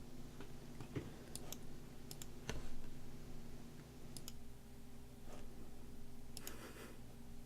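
Scattered, faint clicks of someone typing on a computer keyboard, over a low steady hum.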